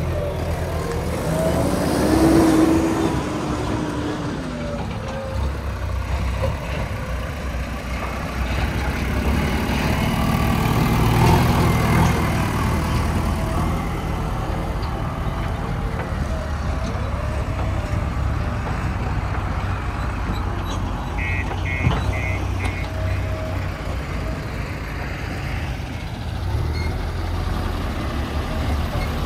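Heavy diesel engines of backhoe loaders working, running steadily and revving up twice under load. About 21 seconds in, a quick run of about five short high beeps sounds.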